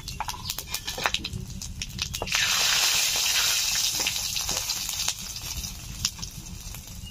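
Whole spices (bay leaves, cumin seeds and whole garam masala) frying in hot mustard oil in an iron wok: scattered crackles and pops, then a loud hissing sizzle starting a couple of seconds in that slowly dies down.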